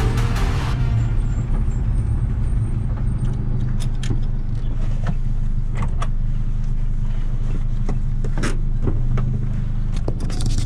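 Seat Ibiza Cupra's 1.8 TSI turbocharged four-cylinder engine running at low, steady revs, heard inside the stripped, roll-caged cabin. A few sharp clicks and knocks come from the cockpit in the middle of the stretch, with more near the end as a gloved hand touches the camera.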